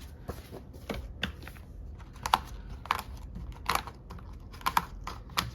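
Planner pages being handled and fitted into the planner: a scattering of light, irregular clicks and taps with faint paper rustling.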